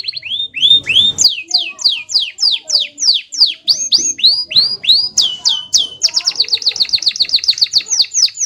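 Canary singing in its rolling song: tours of identical whistled notes repeated in quick succession, some sweeping up and some down, with the pace switching from about three notes a second to a fast run of about eight a second around five seconds in.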